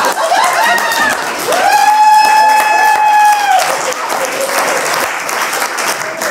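Audience applauding, with a long held cheer from a voice over the clapping about a second and a half in.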